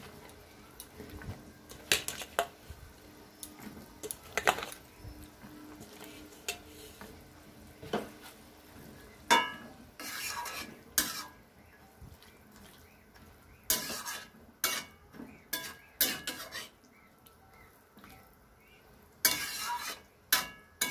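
A metal spatula scraping and knocking against a metal wok while stirring ridge gourd pieces into a boiling curry. The strokes are scattered and irregular, and come in quicker clusters in the second half.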